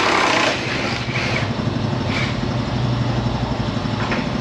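A steady machine hum, like a motor or engine running, with a low drone under a wash of noise that swells briefly at the start.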